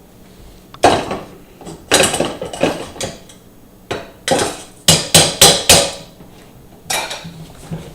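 Colander knocked against a cooking pot several times, with a quick run of four or five strikes in the middle, as rinsed rice is tipped back into the pot.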